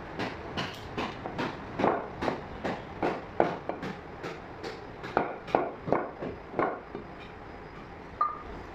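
Meat cleaver chopping mutton on a wooden chopping block: a quick run of chops, about two or three a second, stopping about seven seconds in, then one more knock with a short metallic ring near the end.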